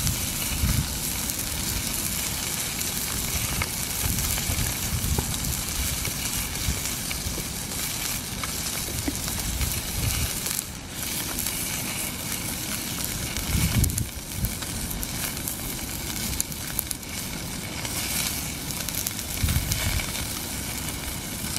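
Steak sizzling and crackling as it fries in a pan on a gas camping stove, with a few low rumbles, the loudest about two-thirds of the way through and again near the end.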